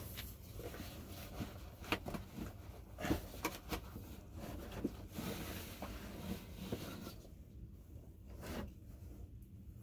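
Handling noise from rummaging in a padded camera backpack: fabric rustling, zipper-like scrapes and small knocks, irregular and short, as a cloth-wrapped telephoto lens is pulled out. It goes quieter for a couple of seconds near the end.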